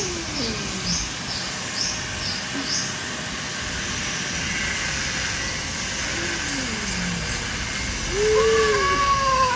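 Two domestic cats yowling at each other in a fight standoff: drawn-out low wails that slide down in pitch, one near the start and another about six seconds in, then a louder yowl near the end that rises and falls.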